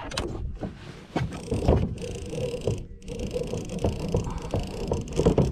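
Handling noise on a boat: irregular knocks and rustling as a fishing rod and gear are moved about on the deck, over a low rumble.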